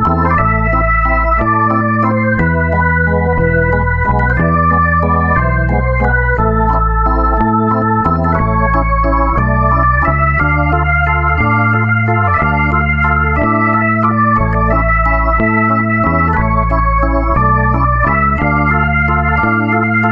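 Background music on an electronic organ: sustained, slightly wavering chords over a held bass line, changing every second or so.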